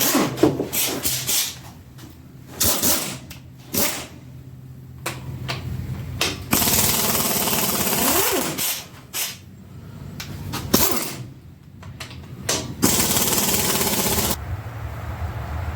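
Power tool, likely an impact wrench, running in two bursts of about a second and a half each, spinning bolts off the small block Chevy 350. Before them come sharp metallic clicks and knocks of hand tools.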